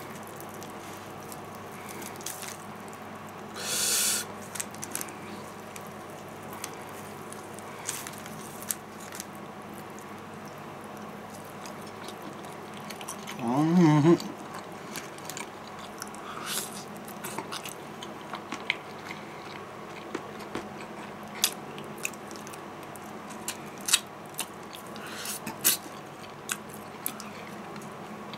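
A man eating Kentucky Fried Chicken with his fingers: scattered small lip smacks and chewing clicks as he picks meat off the bone and eats. About four seconds in there is a short hiss, and just before fourteen seconds a brief hummed 'mmm' with a wavering pitch, the loudest sound.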